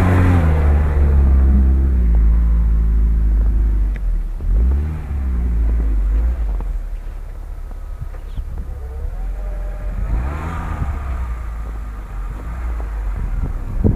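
Car engine running hard off-road, held steady at first, then revving up and down in short sweeps, with another rise in pitch about ten seconds in.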